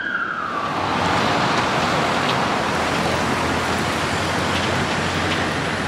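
A police siren's wail drops in pitch and fades within the first second, leaving a steady, loud rush of busy city traffic with a low engine hum under it.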